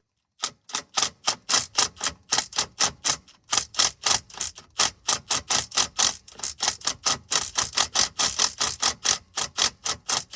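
A wrench working a rear driveshaft yoke bolt on a Jeep Cherokee XJ: rapid bursts of metallic clicking, about four to five a second, with a few short pauses.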